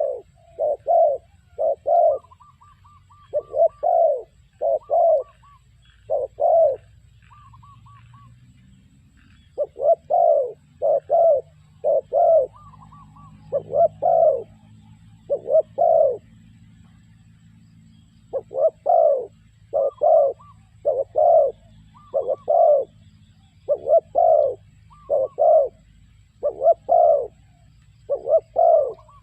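Spotted dove cooing: loud, repeated short coo notes in runs of several, with pauses of a few seconds between runs and fainter higher calls between them.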